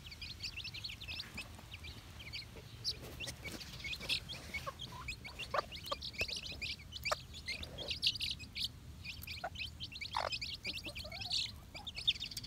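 A brood of chicks peeping all at once: many short, high chirps overlapping. Now and then the mother hen gives a lower call among them, most clearly about ten seconds in.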